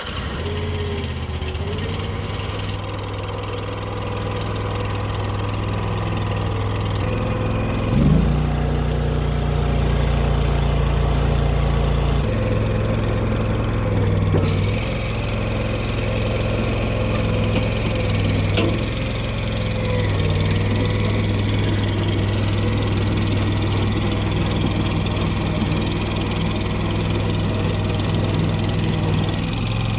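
Struck MagnaTrac Hydro 5000 mini crawler dozer's engine running steadily. About eight seconds in its note sweeps up and turns deeper and heavier for about four seconds, then settles back to a steady run.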